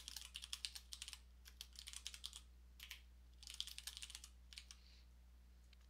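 Typing on a computer keyboard: quick runs of keystrokes in several short bursts separated by brief pauses, the last few taps near the end.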